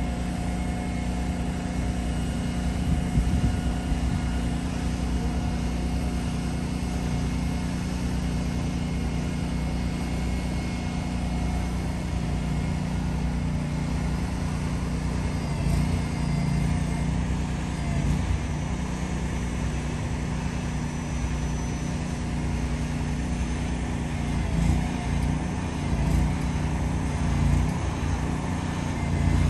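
Diesel engines of heavy-haul trucks running as they slowly move a long steel bridge beam on multi-axle trailers: a steady low drone with slight swells.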